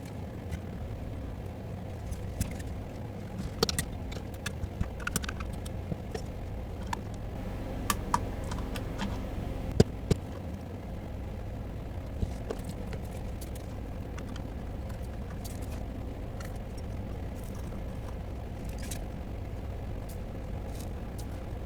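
Scattered light clicks and taps of small tools being handled at a workbench during circuit-board repair, over a steady low hum; the clicks die away about halfway through.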